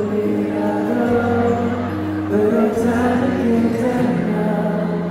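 A male singer singing live into a handheld microphone over an instrumental backing track, heard through a concert sound system, with long held notes.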